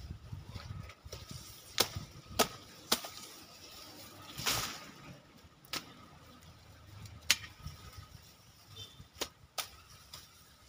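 Hand sickle cutting through elephant grass stalks: several sharp, crisp cuts at uneven intervals, roughly one every second or so.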